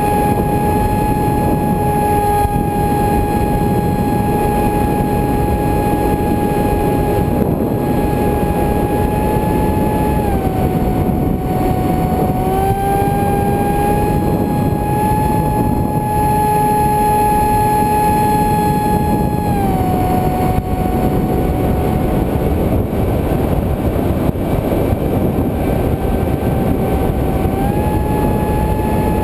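Electric motor and pusher propeller of a FunJet RC jet whining steadily in flight, under a heavy rush of wind over the onboard camera. The whine drops a little in pitch about ten seconds in, comes back up a couple of seconds later, drops again around twenty seconds and rises again near the end.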